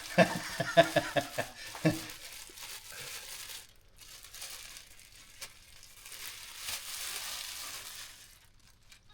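North Country Cheviot ewe licking her newborn lamb clean: a steady wet rustling that fades near the end. A few short pitched sounds come in the first two seconds.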